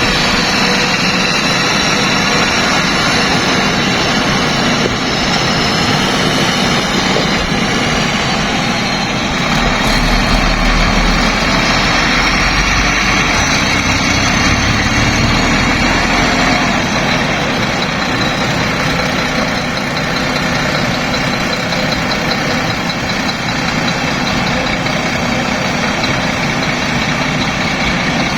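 Sany SY365 hydraulic excavator's diesel engine running steadily. The engine sound deepens and grows louder from about ten to seventeen seconds in.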